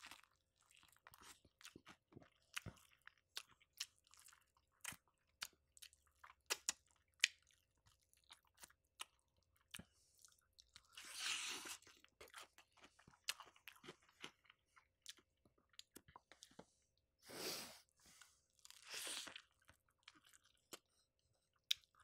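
Close-up eating sounds of crispy Popeyes fried chicken: irregular sharp crunches of the breading and chewing, with short pauses between bites and a few brief louder breathy swishes.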